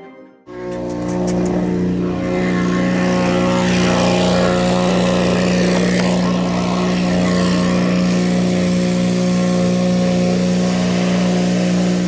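Engine of a piece of site equipment running steadily at a constant speed, starting abruptly about half a second in.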